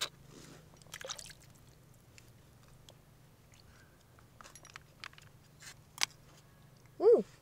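Scattered small clicks and scrapes, then near the end a short, loud call that rises and falls in pitch.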